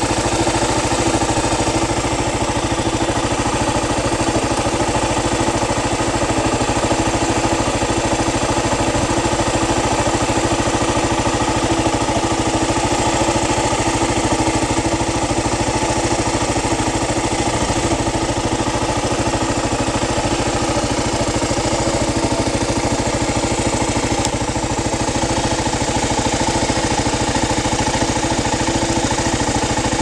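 Kawasaki motorcycle engine idling steadily in neutral.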